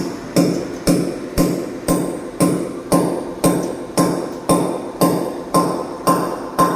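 Background music with a steady percussive beat, about two beats a second.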